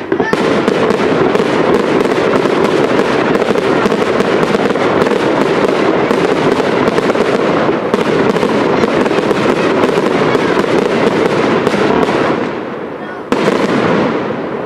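Fireworks display: a dense, continuous run of bursting shells and crackling pops with sparking ground fountains. It thins a little near the end, then starts up again with a sudden loud burst.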